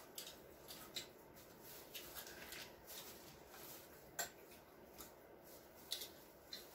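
Quiet room with faint eating sounds: scattered soft clicks and smacks of people chewing at a table, with one sharper click about four seconds in.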